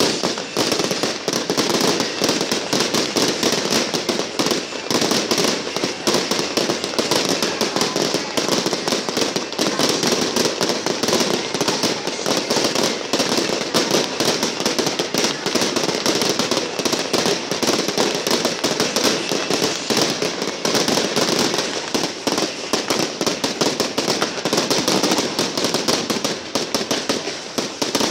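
Fireworks going off in a dense, continuous barrage: rapid bangs and crackling that never let up.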